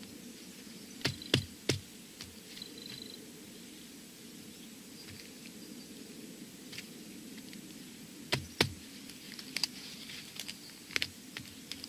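Scattered sharp clicks and taps of a metal tool prodding and piercing a mobile phone's lithium battery, a cluster of three about a second in and more from about eight seconds on, over a steady low background hum.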